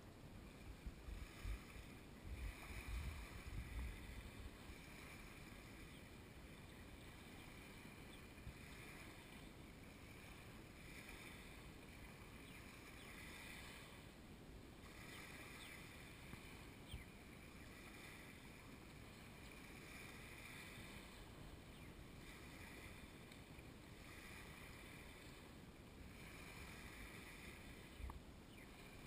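Faint small waves lapping and washing on a sandy shore, swelling and fading about every two seconds. Wind buffets the microphone in low gusts during the first few seconds and once near the end.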